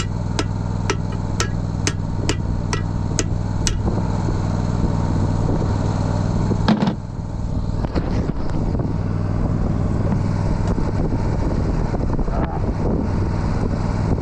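Hammer blows on steel disc-gang parts, about two a second, stopping after eight or so, then one heavier clang about halfway through. Underneath, a tractor engine idles steadily.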